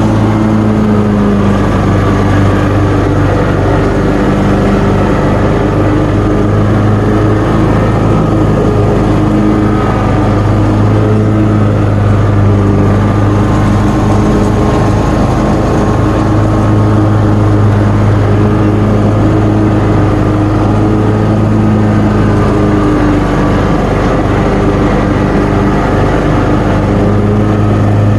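John Deere mower engine running steadily under load with the deck cutting thick, wet grass.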